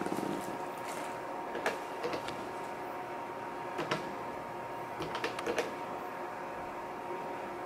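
Ultrasound machine humming steadily, with several sharp clicks scattered through as its controls are pressed to place measurement calipers on ovarian follicles.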